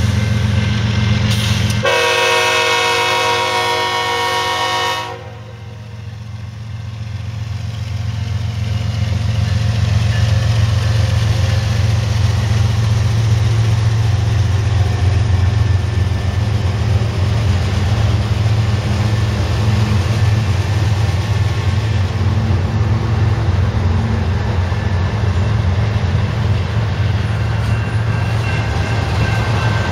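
Canadian Pacific freight train at a level crossing: the lead diesel locomotive's horn sounds one long blast about two seconds in, cutting off after about three seconds. The locomotives' diesel engines and the rolling freight cars then pass steadily, a continuous low rumble.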